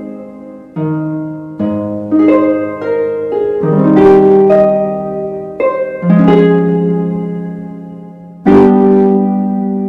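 Background music of gently plucked notes and chords, struck every second or two and left to ring out and fade.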